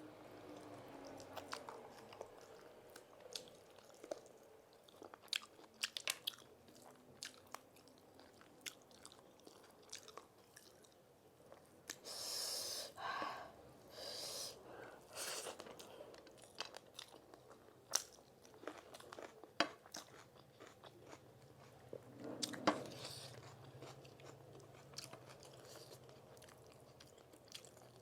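A person chewing and crunching food close to the microphone, with many short mouth clicks and smacks and a few longer, noisier bursts a little after midway.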